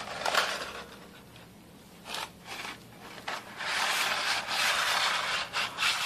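Dry linguine sliding and rattling out of its cardboard box into a plastic-lined crock pot: a few short scrapes, then a longer rustling run of strands spilling in.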